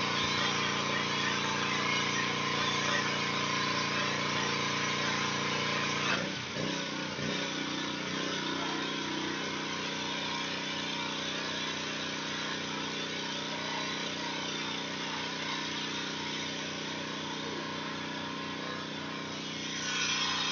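Gas-engine pressure washer running steadily, its small engine's hum under the hiss of the high-pressure spray against the building wall. The engine note shifts about six seconds in.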